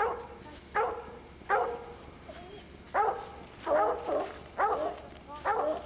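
Coonhound barking treed, seven loud barks in about six seconds, each a short, sharp call: the dog has a raccoon up a den tree.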